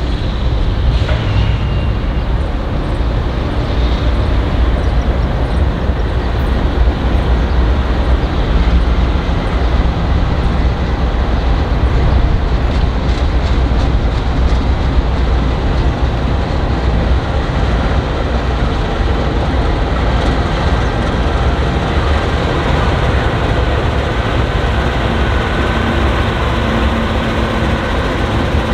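Norfolk Southern diesel-electric locomotives approaching at the head of a coal train: a steady low engine rumble, with engine tones standing out more clearly near the end as the units arrive.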